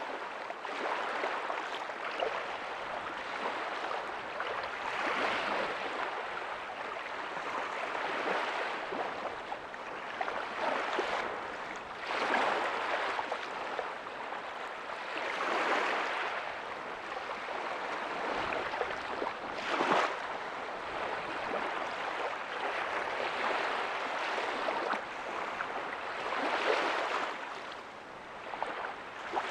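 Small ocean waves breaking softly on a beach: a steady wash of surf that swells every few seconds as each wave breaks and then draws back.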